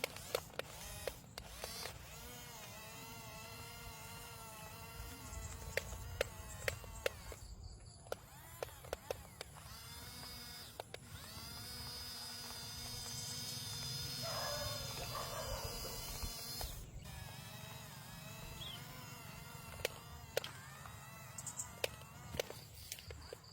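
Small electric drive motors of an RC bulldozer whining, the pitch shifting up and down as it drives and pushes, with scattered sharp clicks and knocks.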